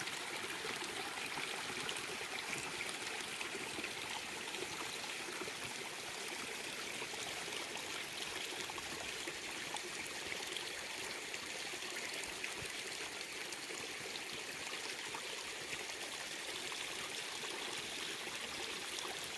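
Small creek flowing, a steady even rush of running water.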